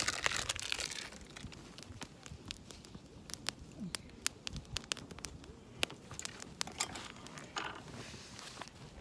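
Wood fire crackling, with irregular sharp pops throughout. There is a short rustle at the start and another near the end.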